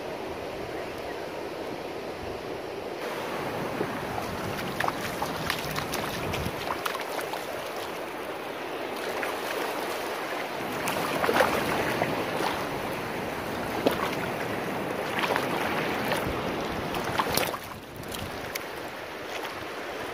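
Surf breaking and washing up a beach, with wind on the microphone. From about three seconds in, sharp splashes as a hooked small blacktip shark thrashes in the shallow wash, loudest near the middle and shortly before the end.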